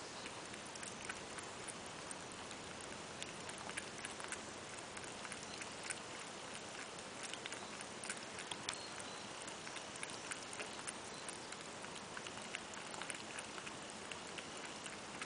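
Cat lapping water from a bowl: a run of small, uneven ticks, several a second, over a steady hiss.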